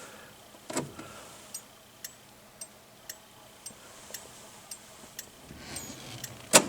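1962 Chrysler 300H turn signal flasher ticking evenly about twice a second, showing the repaired turn signal switch is working. A click about a second in as the lever is moved, and a louder click near the end.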